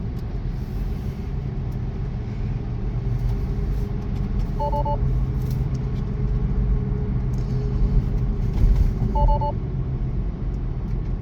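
Steady road and tyre rumble inside a Tesla's cabin, with the car's short two-tone alert chime sounding twice, about four and a half seconds apart. The chimes go with Full Self-Driving beta failing to re-engage.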